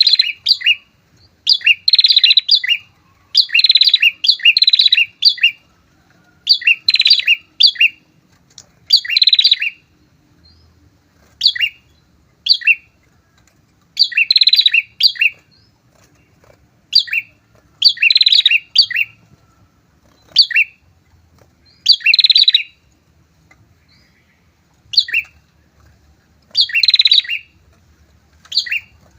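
A pair of prinias (prenjak) calling vigorously. Loud bursts of sharp, rapid chirps, each under a second long, repeat every second or two with short gaps between.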